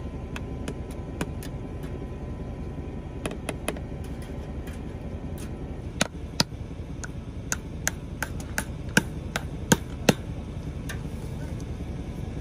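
Irregular sharp metallic taps and clicks of a hand tool working barbed and woven fence wire at a wooden fence post, a dozen or so, most of them between about six and ten seconds in, over a steady low rumble.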